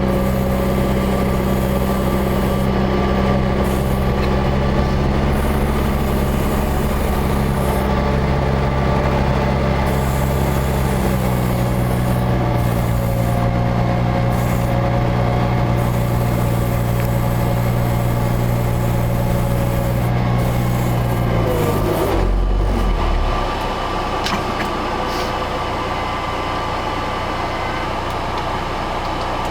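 Tucker Sno-Cat engine running steadily under load as it climbs through deep snow. Its note shifts slightly about a third of the way in, then drops sharply and goes quieter near the end as the engine slows down.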